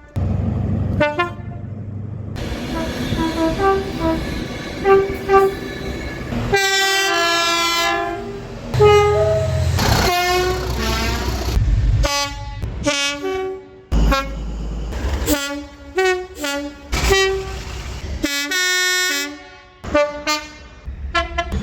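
Train horns in a quick run of short clips, cut abruptly from one to the next: short toots and longer blasts over the rumble of the trains. One long blast about seven seconds in falls in pitch as the train passes.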